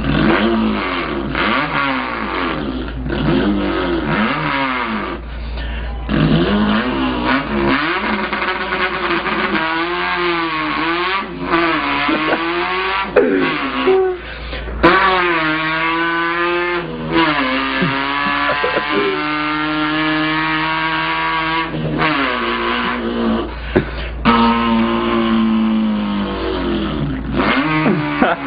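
A man imitating an import car's engine with his mouth, revving it. The pitch climbs and falls over and over with short breaks, and it holds high and steady for a few seconds past the middle.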